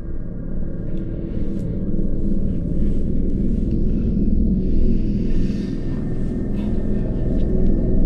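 Deep rumbling drone of horror-film sound design that builds over the first couple of seconds, then holds steady, with faint scattered crackles and hiss over it.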